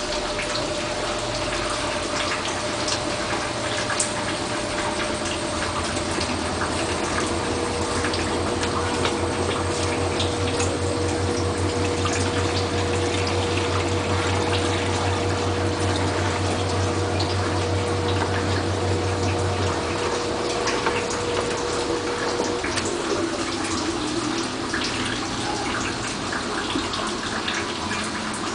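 Bosch washing machine with water rushing through it, typical of the machine filling or pumping. A steady hum under the water noise stops about 20 seconds in, and a higher steady tone cuts out a few seconds later.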